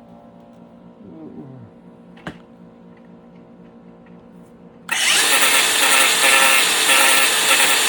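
Angle grinder humming quietly with the disc off the work, then about five seconds in the disc bites into the mount and a loud grinding noise starts suddenly and keeps going. There is a single short knock about two seconds in.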